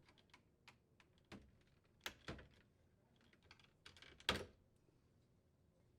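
A small flathead screwdriver prying a plastic waterline retaining bracket free: scattered faint clicks and taps, with one louder click about four seconds in.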